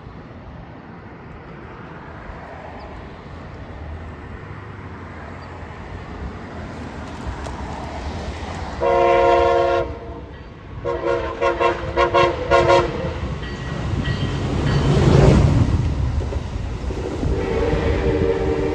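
Passenger train's air horn sounding a chord of several tones: one long blast about nine seconds in, then a quick run of shorter blasts as it approaches. The train then passes close underneath with a rumble that swells to a peak about fifteen seconds in and carries on as the cars go by.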